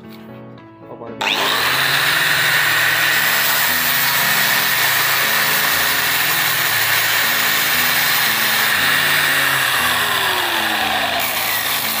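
Corded angle grinder fitted with a sandpaper disc on a backing pad, switched on about a second in and run free at full speed with a steady high whine. It is switched off near the end, and its pitch falls as it spins down.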